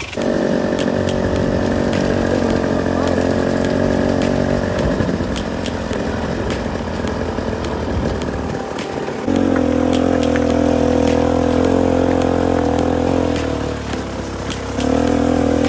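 KTM enduro dirt bike engine running steadily under way on a gravel trail, with a buzzy, even pitch. The engine note jumps to a new steady pitch about nine seconds in, dips briefly, and picks up again near the end.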